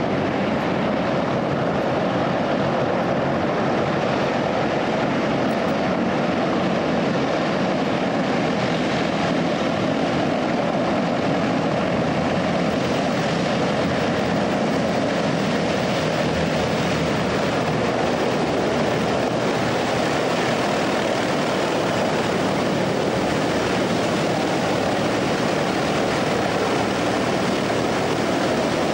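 SR.N4 cross-Channel hovercraft's four gas turbines, pylon-mounted propellers and lift fans running loud and steady as the craft comes in off the sea and up onto the hoverport apron.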